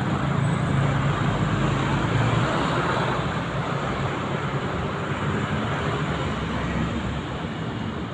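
Motor vehicle engine and road noise. A low engine hum swells in the first couple of seconds, then slowly fades away into a steady hiss.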